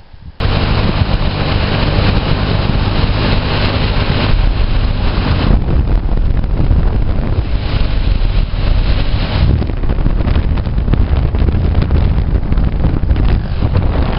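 Engine of a small off-road vehicle (quad bike or buggy) running steadily as it is ridden along a road, heard from on board, with heavy wind noise on the microphone. It starts abruptly about half a second in.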